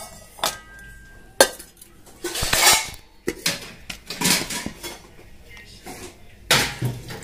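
Stainless steel pot clanking as it is handled and set down on an induction cooktop's glass top: several sharp metal knocks and clanks, one after another.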